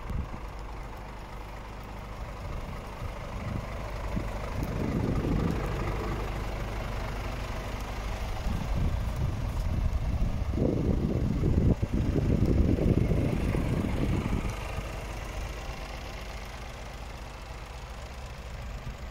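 Scania R450 truck's 13-litre straight-six diesel idling steadily, with louder, rougher stretches about five seconds in and from about ten to fourteen seconds in.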